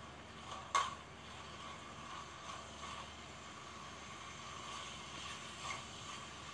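A steel ladle stirring mutton liver fry in a metal pan over a soft, steady sizzle, with one sharp clink of the ladle against the pan just under a second in and a few lighter taps later.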